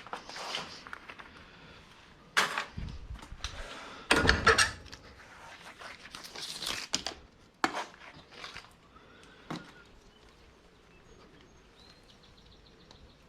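Irregular knocks, clatters and rustles of scrap wire being handled and sorted, with a few louder impacts about two and four seconds in and a sharp click near eight seconds.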